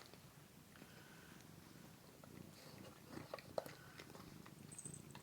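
Faint crunching and a few small clicks of a cat chewing a dry treat, against a near-silent room.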